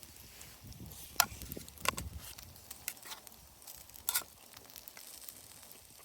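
Wood campfire crackling, with a few sharp pops about a second in, near two seconds and again after four seconds.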